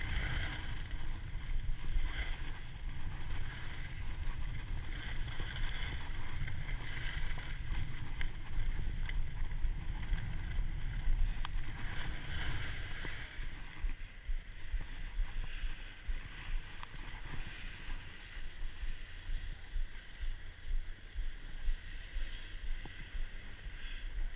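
Wind rumbling over the microphone of a camera worn by a moving skier, with the hiss and scrape of skis carving turns on packed snow coming in surges every second or two. The scraping fades about fourteen seconds in as the skier slows.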